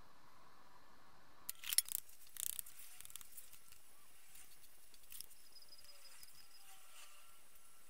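Plastic filler spreader scraping body filler on metal: a few short, sharp scrapes about two seconds in, then fainter scratches and ticks.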